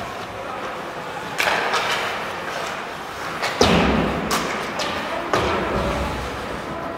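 Ice hockey play on the rink: a handful of sharp cracks of sticks, puck and boards. The loudest, about halfway through, is a heavy thud against the boards.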